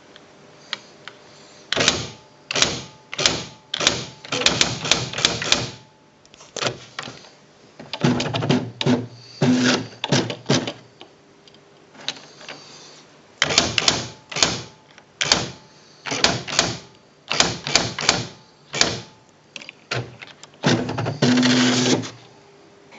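Sharp QL-100 electronic typewriter typing: bursts of rapid, sharp print strikes separated by short pauses, with a motorised whirr under some bursts and a longer whirr near the end.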